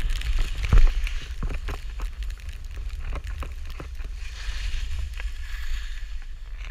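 Skis hissing over snow while wind rumbles on the camera's microphone, with scattered clicks and knocks throughout and a sharper knock about a second in.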